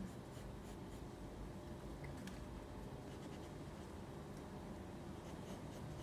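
Pencil drawing on paper: faint, scattered scratches from short strokes.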